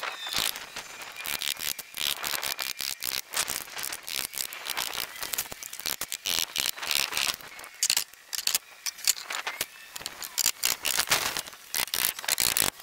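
Hammer driving nails through metal framing brackets into pressure-treated lumber: a fast, irregular run of sharp knocks and metallic clinks.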